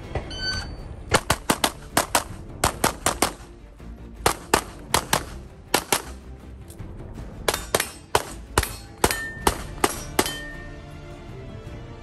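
A competition shot timer beeps, then a Canik SFx Rival 9mm pistol fires rapid strings of shots, mostly in quick pairs, with short pauses between strings. Near the end, a hit on a steel target rings.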